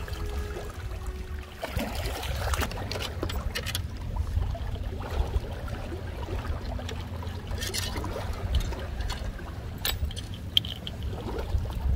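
Sea water washing and lapping against shore rocks, with scattered clicks, clinks and rustles of fishing gear and a mesh net being handled.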